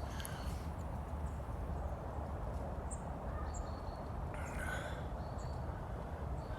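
Outdoor woodland ambience: a steady low background rumble with a few short, high bird chirps. There is a brief rustle about four and a half seconds in.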